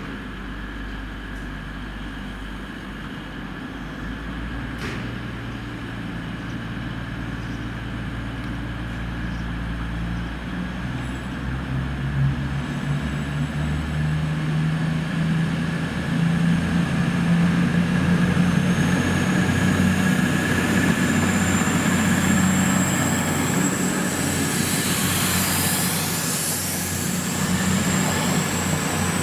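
Diesel train running, its low engine hum growing louder over the first fifteen seconds or so and changing pitch about ten seconds in. A high steady whine joins it about two-thirds of the way through.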